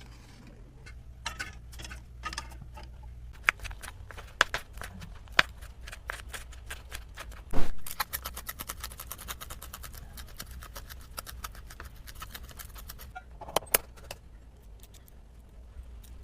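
Kitchen utensils clicking and clinking against a bowl or dish, with one louder knock about halfway and then a fast, even run of clicks lasting about five seconds, over a low steady hum.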